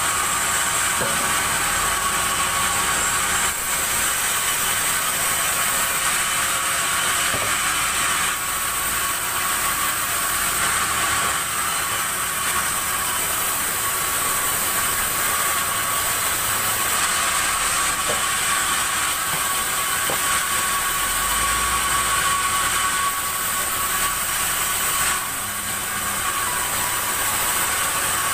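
Sawmill circular saw machinery running steadily: a continuous high-pitched mechanical whine with a steady ringing tone, dipping slightly in level once near the end.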